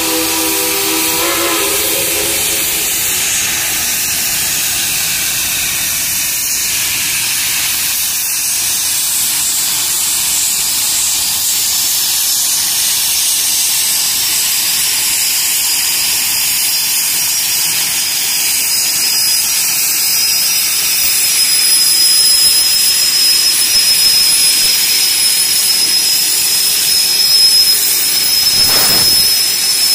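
A steam locomotive whistle sounds a chord that dies away about two seconds in. It gives way to a steady, loud hiss of steam blowing off from the lined-up geared logging locomotives, most likely from a lifted safety valve. A thin high tone rides on the hiss in the second half.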